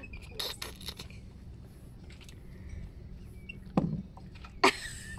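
Knocks and a scrape on a sailboat's fibreglass deck while it is being scrubbed with a long-handled deck brush: a few light taps early on, then two sharp, louder knocks about four seconds in and near the end, the second trailing into a brief scrape, over a steady low rumble.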